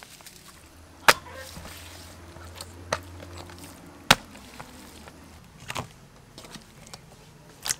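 Raw beef slices slapped and knocking against a stainless steel bowl as they are handled: five sharp knocks, spaced about one and a half to two seconds apart.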